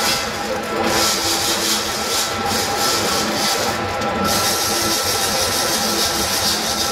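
Rig-mounted concrete core drill running with a steady whine, its bit grinding into concrete in a harsh scraping that sets in about a second in and breaks off briefly around four seconds.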